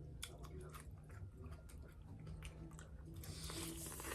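Chewing crispy fried chicken close to the microphone, with many short crunchy clicks and a denser stretch of crunching about three seconds in.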